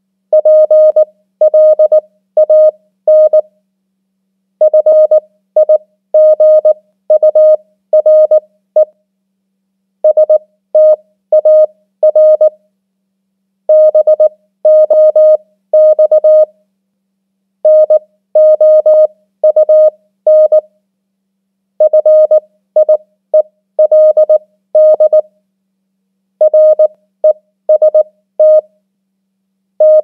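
Morse code practice tones at 18 words per minute: a single steady-pitch beep keyed into dots and dashes that spell out common English words, each word a cluster of beeps followed by a pause of about a second.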